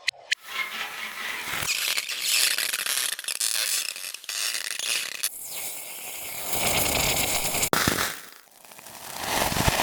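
Hissing and sizzling from extreme-temperature reactions, hot or frozen material meeting liquid, with crackling clicks through it, cut abruptly from one recording to the next about halfway through and again later. Near the end the sound fades nearly away and then swells back up.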